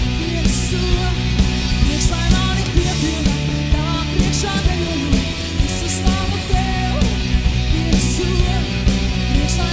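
Live rock-style worship band: a woman sings a melody into a handheld microphone over drums with cymbal crashes and electric guitar.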